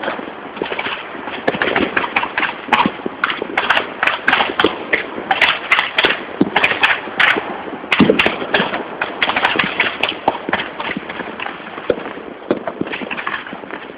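Dense crackle of many firecrackers and fireworks going off at once: rapid, overlapping pops and bangs with no let-up, and a louder bang about eight seconds in.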